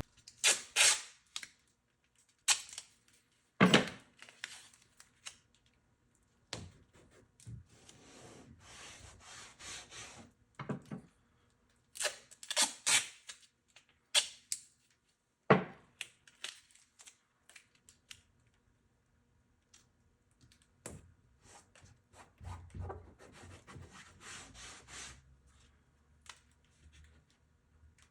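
Irregular clicks, taps and rustling from hands handling parts and tools, with short gaps between.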